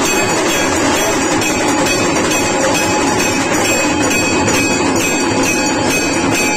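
Aarti bells: a hanging temple bell rung continuously by hand, mixed with dense metallic clanging, at about three strokes a second with a steady ringing tone underneath.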